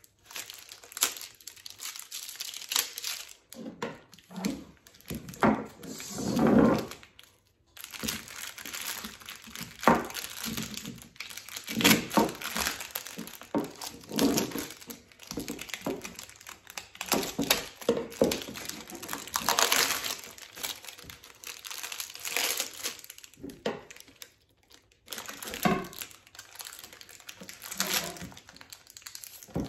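Clear plastic wrapping crinkling and tearing in irregular bursts as it is cut with a small knife and peeled off a sword blade.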